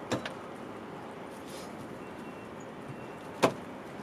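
A few sharp clicks and knocks from someone getting into a car through its open driver's door: two quick clicks right at the start and a louder knock about three and a half seconds in, over a steady low outdoor hiss.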